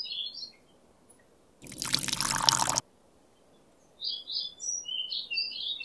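Water pouring in a short splashing rush of about a second, starting about one and a half seconds in. From about four seconds, birds chirp in quick, short, high calls.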